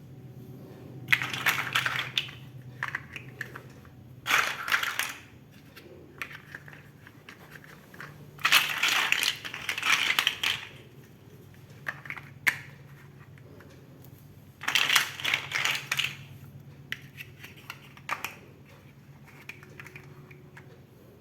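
Plastic Lego bricks clicking and rattling in several short bursts as they are handled and pressed together, with a few single clicks in between.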